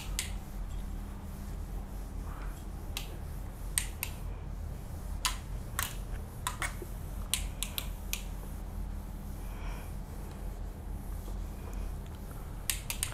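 A whiteboard being wiped clean with an eraser: faint rubbing and about a dozen scattered, irregular sharp clicks and taps against the board, over a steady low hum.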